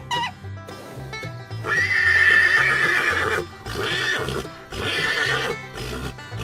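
A horse neighing over background music: one long whinny starting a little under two seconds in, then two shorter ones.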